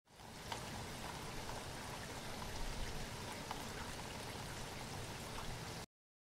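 Steady, even outdoor background hiss with a few faint ticks, which cuts off abruptly near the end.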